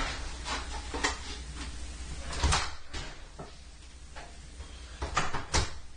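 A handful of sharp knocks and clacks, like a door or cupboard being opened and shut, over a low steady hum. The loudest knock comes about halfway through, and two more come close together near the end.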